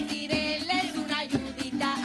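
Live eastern Venezuelan folk song, a diversión oriental: women singing with cuatro accompaniment, over a low beat about once a second.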